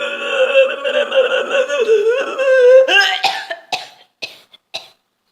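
A person's drawn-out vocal noise, held at one wavering pitch, that irritates the throat. About three seconds in it breaks into a run of four or five short, small coughs.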